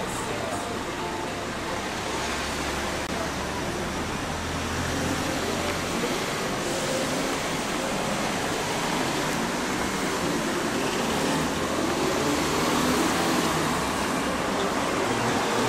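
Town street traffic: cars driving past, a steady noise of engines and tyres.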